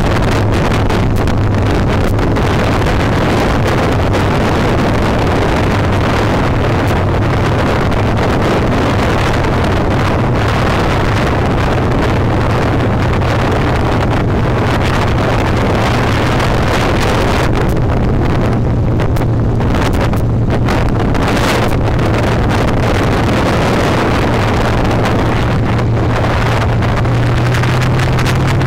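Harley-Davidson V-twin engine running steadily at cruising speed while riding, with heavy wind rushing over the microphone.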